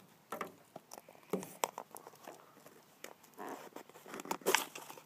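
A taped cardboard shipping box being opened: a utility knife scratching through the tape, then the cardboard flaps being pulled apart, with scattered clicks and rustling. Two louder tearing rips come about three and a half and four and a half seconds in.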